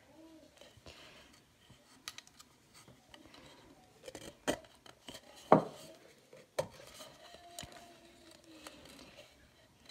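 A pipe cleaner being threaded through nail-punched holes in a painted tin can: its wire scrapes and rubs against the can's metal, with scattered clicks and a few sharp knocks as the can is handled, the loudest about halfway through.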